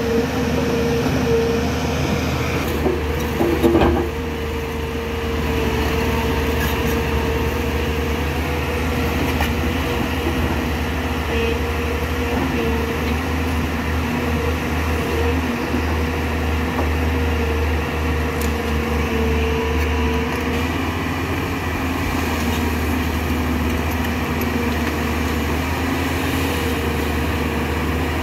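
JCB tracked excavator running steadily while its bucket digs into a rocky slope: a constant engine rumble with a steady whining tone over it. A short cluster of knocks comes about three to four seconds in.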